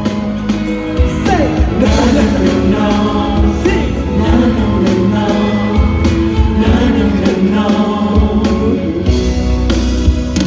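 Thai pop song played loud: a band mix with a steady beat and guitar, with male voices singing over it.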